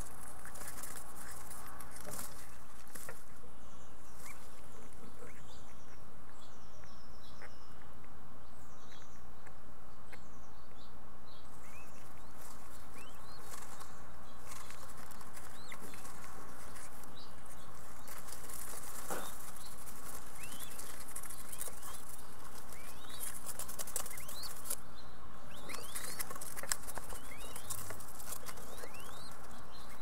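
Mourning dove fledglings fluttering their wings and shuffling against a parent in the nest as it feeds them, over a steady hiss. Short high chirps come and go throughout.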